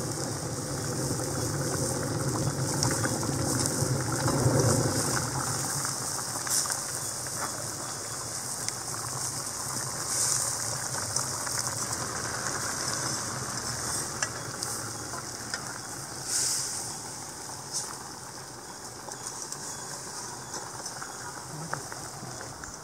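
Mutton stock boiling in a steel pan with blocks of instant noodles in it, giving a steady hiss that is loudest a few seconds in. A steel ladle stirs and presses the noodles down, with a few light clinks against the pan.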